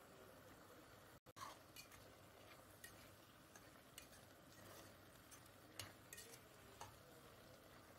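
Faint clinks and scrapes of a metal spoon against a metal pot while stirring a thick fish and chana dal mixture, a handful of scattered ticks over a low steady hiss.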